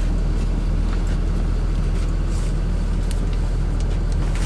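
Steady low drone of an idling engine, with a few faint light clicks of tools being handled.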